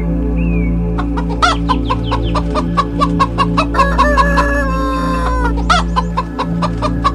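Domestic chickens clucking in quick short calls, with a rooster crowing once, a long held call, about four seconds in. A steady music bed runs underneath.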